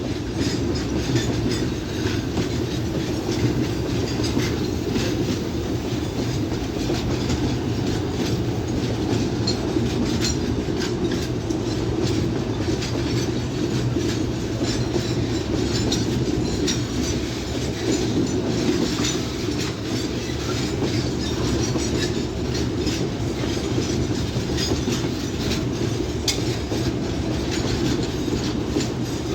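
Freight train wagons rolling past on the track: a steady rumble with a continual clatter of wheels over the rail joints.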